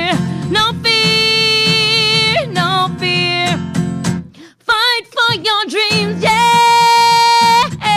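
Female singer-songwriter singing long held notes with vibrato over a strummed acoustic guitar, live into a microphone. About four and a half seconds in the music breaks off briefly, then the voice returns with quick runs and a long held note near the end.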